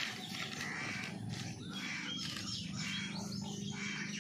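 Birds chirping and calling, a steady run of short rising and falling calls.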